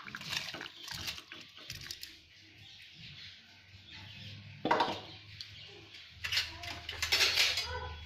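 Soaked basmati rice tipped into a steel pot of boiling water, splashing and hissing briefly at the start; then the water bubbles more quietly, with a short sharp noise just before 5 s in and a louder, longer burst of noise near the end.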